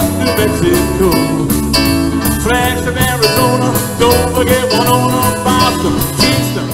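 Live rock band playing an oldies-style song: electric guitars, bass, drums and keyboard, with a man singing lead.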